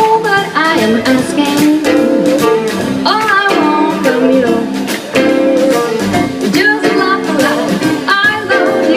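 Live jazz band playing a swing tune between sung verses, with plucked strings and a melodic lead line with sliding notes.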